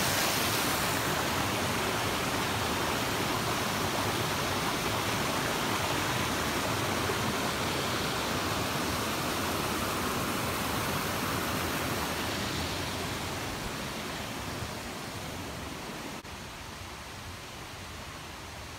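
Rushing water of a mountain creek: a steady, even hiss that fades over the last few seconds and drops lower near the end.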